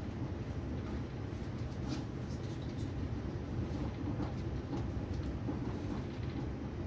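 Steady low rumble of an ÖBB Railjet passenger train running at speed, heard from inside the carriage, with a few faint clicks.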